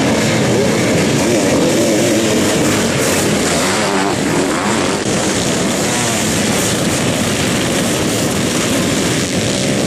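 A pack of sidecar motocross outfits accelerating hard away from the start, many motorcycle engines revving at full throttle together, loud throughout.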